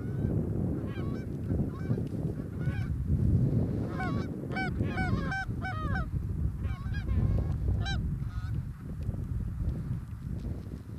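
Geese honking, many short calls overlapping, thickest about four to six seconds in.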